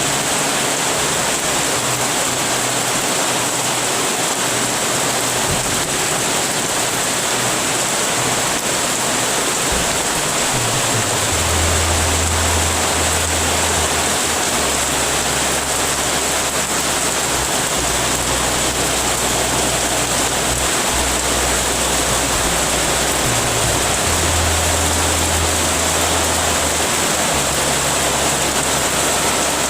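Heavy rain falling, a steady dense hiss, with a low hum underneath that swells twice.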